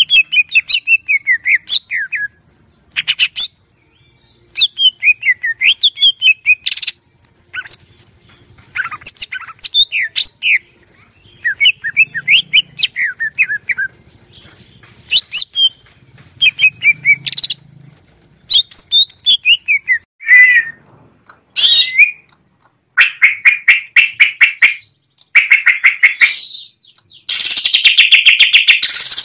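Green leafbird (cucak ijo) singing loudly: a string of warbled phrases of quick, falling whistled notes, each phrase a second or two long with short pauses between. In the last six seconds or so the song turns into fast, even trills that run almost without a break near the end.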